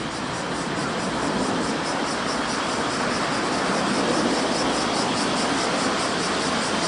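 Vehicle passing on a city street: a steady rushing noise that swells through the middle and eases near the end.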